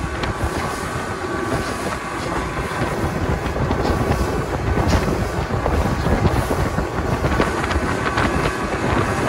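Fishing boat running at speed over choppy water: a steady loud rush of wind buffeting the microphone over the engine and water noise.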